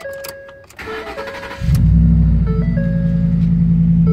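Ford F-150 pickup engine being cranked by the starter, catching about a second and a half in and settling into a steady idle. Over it, a dashboard door-ajar warning chime repeats a short stepped tone about every second and a half.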